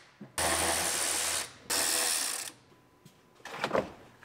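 Power ratchet running in two bursts of about a second each, backing out the mounting bolts of the side curtain airbag in the roof rail.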